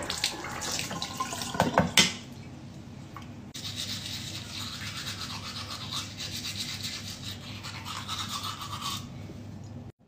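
A few knocks and clicks, then teeth being brushed with a toothbrush: a steady scrubbing rasp from about three and a half seconds in until shortly before the end.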